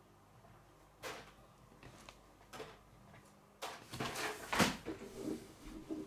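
Hands handling plastic Lego bricks: a few single clicks, then a busy run of clicking, clattering and rustling from about three and a half seconds in.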